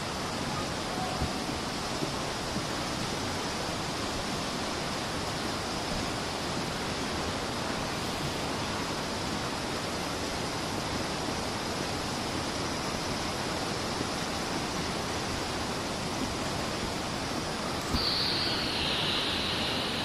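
Steady rushing of a waterfall and stream, an even unbroken hiss. About two seconds before the end a higher, thinner hiss joins in over it.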